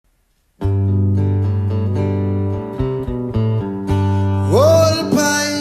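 Song intro on strummed acoustic guitar, starting about half a second in, with a man's singing voice coming in on a rising note about four and a half seconds in.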